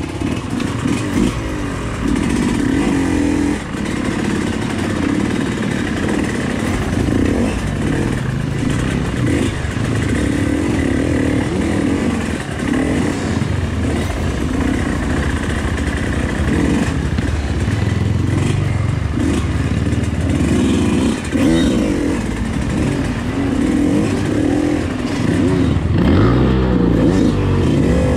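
Yamaha YZ125X dirt bike's single-cylinder two-stroke engine revving up and down over and over as it is ridden, the pitch rising and falling every second or two.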